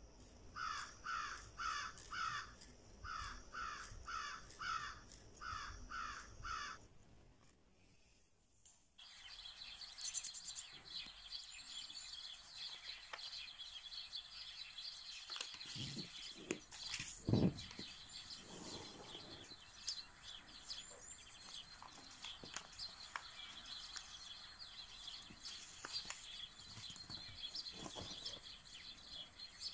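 A crow cawing in quick runs of harsh caws, three runs over the first seven seconds. After a short lull, small birds chirp steadily in the background while black paper is creased and smoothed on a table, with a few soft thumps about halfway through.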